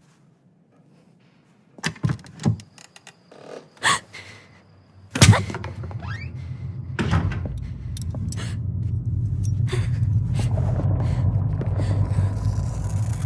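Sound-effects track: a few sharp knocks and clicks, then a heavy thunk about five seconds in. After it a low rumbling drone swells and holds, with scattered clicks over it.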